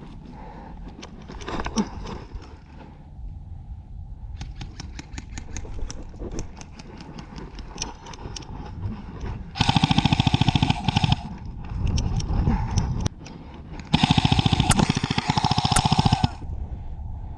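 Airsoft assault rifle firing full-auto bursts: a rapid, even stream of shots for about a second and a half near the middle, a shorter, quieter burst, then a longer burst of about two seconds near the end. Before that, scattered light clicks and rustles.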